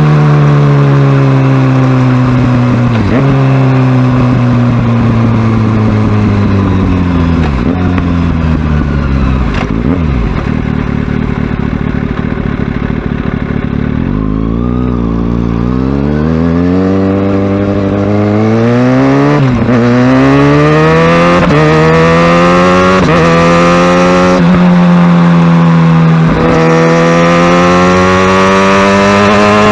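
Kawasaki Ninja ZX-6R's inline-four engine under way, its pitch falling as the bike slows through several gear changes. About halfway it settles low, then it climbs again through a quick series of upshifts as the bike accelerates.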